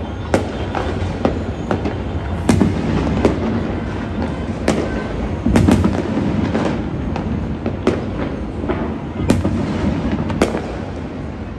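Many fireworks and firecrackers going off across a city: a constant rumble and crackle of distant explosions, with about nine sharper, louder bangs spread irregularly every second or two.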